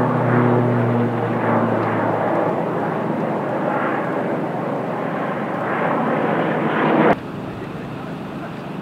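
Twin-engine firefighting air tanker flying low overhead: a steady engine drone with a low hum that fades over the first two seconds. The loud aircraft noise cuts off abruptly about seven seconds in, leaving a quieter steady background.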